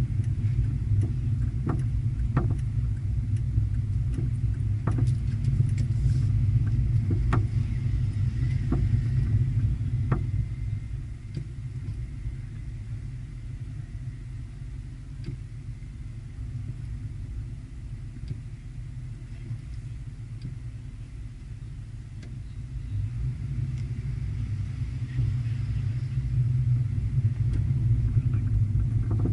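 Chevrolet Corvette's V8 engine running at a slow crawl, a low rumble heard from inside the cabin, with a few sharp ticks in the first ten seconds. It quietens about ten seconds in and grows louder again past twenty seconds.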